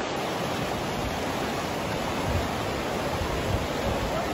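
Fast-flowing floodwater rushing steadily around people wading through it.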